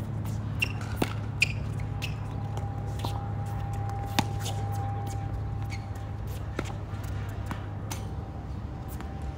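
Tennis rally on a hard court: tennis balls struck by rackets and bouncing, a series of sharp pops, the loudest a little over four seconds in, over a steady low hum.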